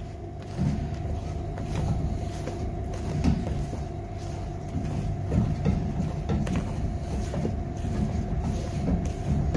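Steady low machine hum with a constant mid-pitched tone. Over it, soft irregular scrapes and taps from a spatula folding genoise sponge batter in a stainless steel bowl.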